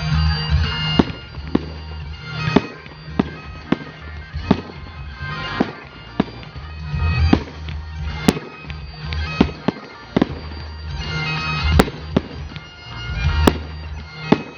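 Fireworks going off in a string of bangs and crackles, with a few sharper reports in the second half, over music with a steady drone, bagpipe-like.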